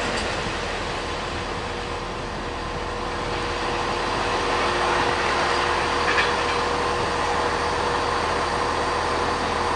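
Freight train of container wagons rolling away along the tracks: a steady rumble with a faint steady hum.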